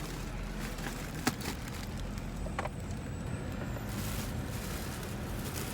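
Steady low background rumble with a single sharp click just over a second in.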